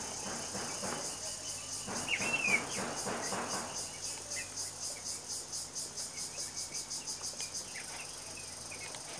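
Background insect chirping in quick, evenly spaced high-pitched pulses that stop near the end, with a short bird-like chirp about two seconds in.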